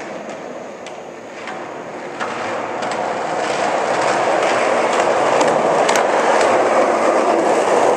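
Skateboard wheels rolling on a concrete floor, a steady rumble that grows louder as the board comes closer, with scattered sharp clicks.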